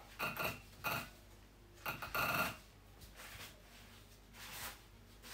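Paper towel rubbing against a surface in several short, faint wiping strokes.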